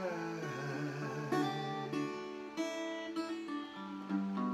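Acoustic guitar being strummed in a slow song, chords ringing on between the strokes.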